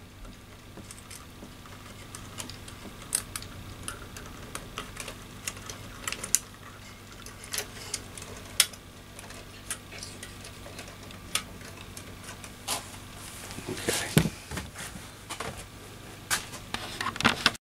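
Irregular small clicks and ticks of hands working a capacitor and its leads into the crowded wiring of a tube tester's chassis, with a somewhat louder knock about 14 seconds in, over a faint steady hum.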